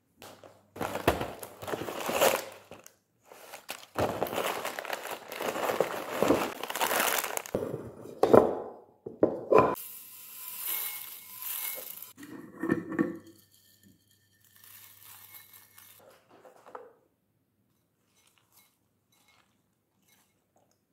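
Cornflakes being handled for breakfast: the crinkling and tearing of the cereal packet, then the flakes tipped from a glass jar into a ceramic bowl with a dry pouring rattle. There is a sharp knock about eight seconds in and a clink of glass a few seconds later.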